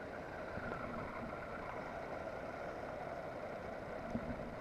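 Steady background drone of room noise, with a faint knock about four seconds in.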